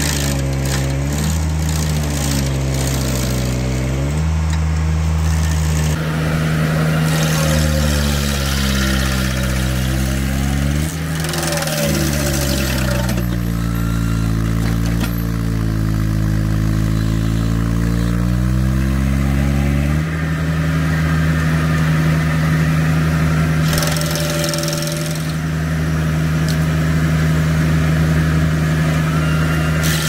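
Engine of a Baumalight mini skid steer running hard to drive its hydraulic S16 stump grinder, whose toothed wheel chews into a tree stump. The engine's pitch sags and recovers several times as the wheel bites into the wood, then runs steadier in the last third.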